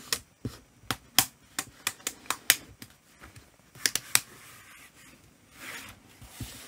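Plastic screen bezel of a Lenovo ThinkPad E14 laptop being pressed back onto the display by hand, its clips snapping into place in a quick run of a dozen or so sharp clicks over the first four seconds. Near the end comes a brief, softer scraping noise.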